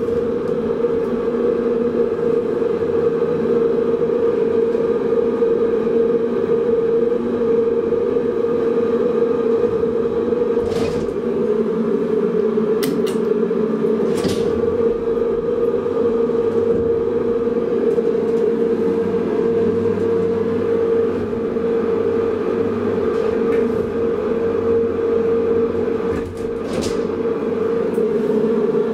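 Deve-Schindler telescopic hydraulic elevator running: a steady, loud hum from the hydraulic pump and motor, heard from inside the moving car. A few light clicks sound over the hum.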